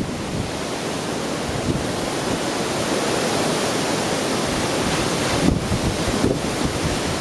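Gale-force wind blowing across the microphone: a steady, loud rushing noise with low, gusty buffeting.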